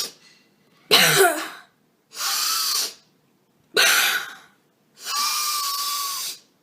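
A man hiccupping while trying to cure it with deep breaths: a sudden voiced hiccup about a second in and another near four seconds, each followed by a long, steady breath.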